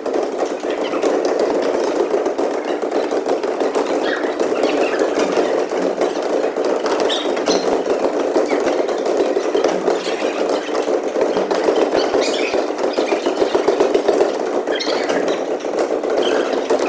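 Steady, echoing din of a school gymnasium, with short high squeaks scattered through it from sneakers on the hardwood court.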